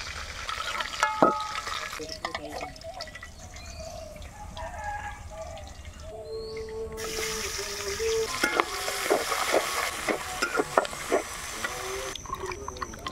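Oil sizzling in an iron wok as pieces of pangas fish fry, with a metal spatula scraping and clinking against the pan. Later, sliced onions sizzle hard in hot oil while the spatula stirs them in quick strokes.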